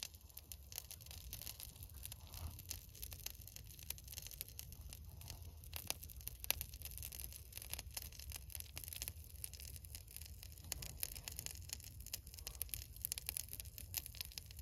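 Pine resin burning on a glowing incense charcoal ring, crackling and sizzling in a dense, irregular stream of fine ticks, over a low steady rumble.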